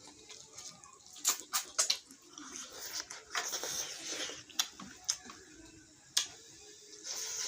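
Close-up eating sounds from a spicy fish-head meal: wet sucking and slurping, with several sharp lip-smacks and clicks, a quick cluster early on and single ones later.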